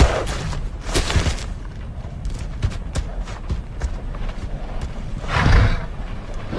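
Dinosaur film sound effect: a dense rumbling noise scattered with knocks and thuds, with a louder swell of noise about five and a half seconds in.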